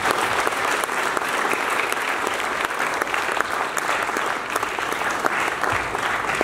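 Audience applauding: steady clapping from a roomful of people.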